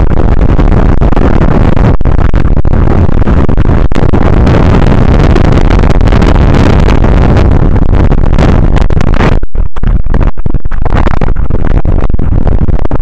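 Strong wind buffeting the microphone: loud, heavy, low noise with no steady pitch, cutting out briefly several times about nine to ten seconds in.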